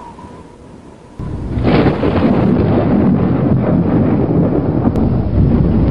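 Film soundtrack effect: a sudden, loud rumbling noise starts about a second in and keeps going steadily.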